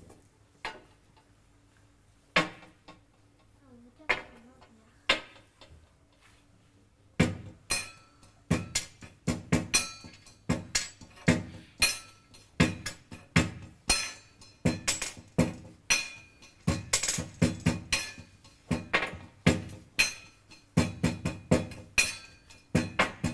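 A metal lantern tapped and struck like a percussion instrument: a few scattered knocks, then from about seven seconds in a quick, uneven run of ringing metallic strikes.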